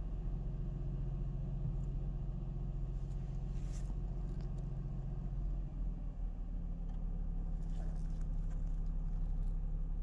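Mercedes SLK 350 (R171) 3.5-litre V6 idling steadily just under 1,000 rpm, heard from inside the cabin. It runs smoothly with the misfire cured by a replacement ignition coil. Its low hum changes note slightly about six seconds in.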